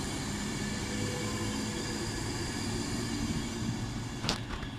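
Class 390 Pendolino electric train moving past, a steady rumble of wheels on rail with a hum and whine from its traction equipment. There is a single sharp knock about four seconds in as the last coach passes, and then the sound begins to fade.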